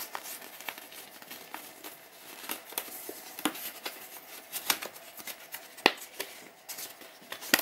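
Paper and thin card rustling as a warranty card and a folded card leaflet are handled and opened, with several short sharp flicks of the card scattered through.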